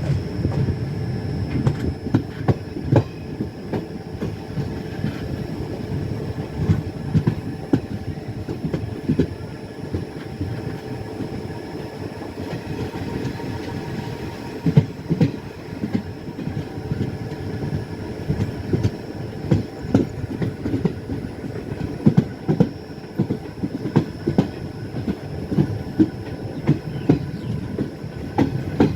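Passenger train running on the rails: a steady low rumble of the coaches, with wheels clicking and clattering over rail joints in irregular clusters.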